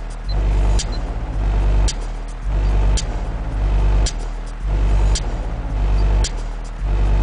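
Bass-heavy electronic music played loud through a Kicker L7 15-inch subwoofer in a sealed box, heard inside the car: deep bass notes swell about once a second under sharp hi-hat-like ticks.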